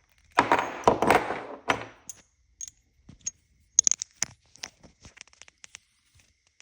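Metal shifter parts being handled and worked apart by hand: two scraping clatters in the first two seconds, then a scatter of small sharp clicks and clinks.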